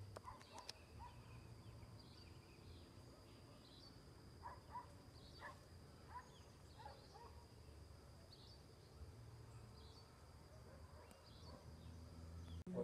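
Faint forest ambience: a steady high-pitched insect drone with scattered short bird chirps over a low rumble.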